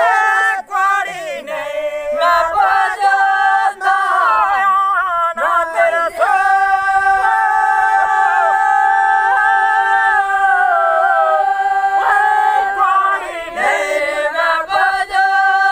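Dogri guallu pakh, a traditional pastoral folk song, sung by a group of voices with no instruments, drawn out in long notes; one note is held from about six seconds in to about twelve.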